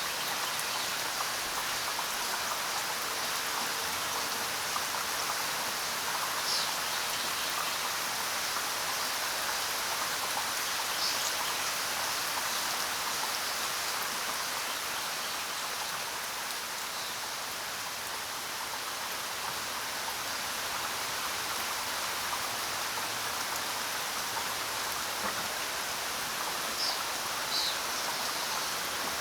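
Steady rain falling, a dense even patter with no let-up.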